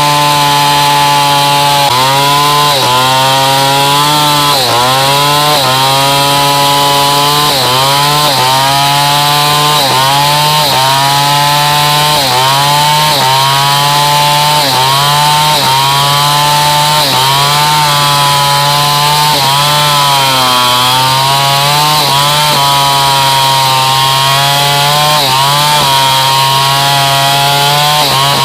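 Stihl 070 two-stroke chainsaw running loud and steady while cutting hardwood. Its engine pitch sags under the load and picks back up about once a second.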